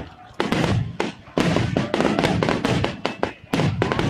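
Fireworks finale barrage: aerial shells bursting in rapid, overlapping bangs with a low rumble between them, broken by a few short lulls.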